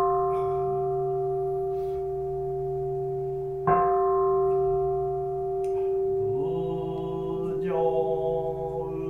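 Bell-like ringing tone, like a singing bowl, struck again about four seconds in and left to ring over a low steady drone. Rising tones join near the end. The whole reads as a meditative music interlude.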